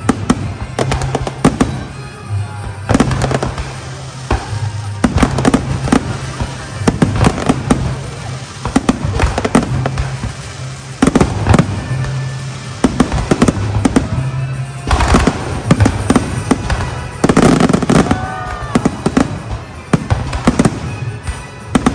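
Aerial firework shells bursting in rapid succession: dozens of sharp bangs and crackles, with a heavier cluster of booms about three-quarters of the way through. Music plays underneath, with a steady bass line.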